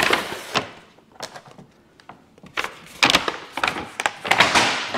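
Paper takeout bag rustling and crinkling as a cardboard box is pulled out of it. The rustling comes in two spells, with a quieter stretch of about a second and a half in between.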